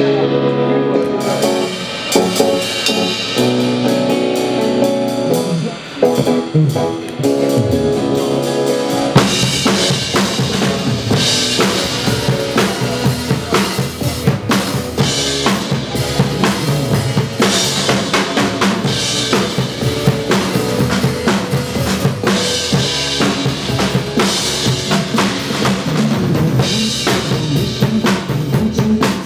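Drum kit played along to a pop song's backing track: for the first nine seconds or so the track's pitched intro leads with light drumming, then the full kit comes in with kick and snare driving a steady beat.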